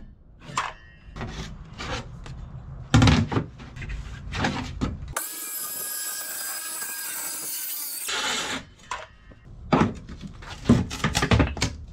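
Sharp knocks and taps of wood as the cut cabinet panels are handled and worked at with a hand tool. A steady hiss fills about three seconds in the middle.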